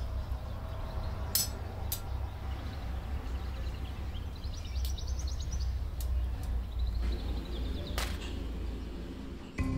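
Metal tandoor rods clicking sharply against the clay oven's rim a few times, over a steady low rumble; faint high squeaks rise and fall in the middle.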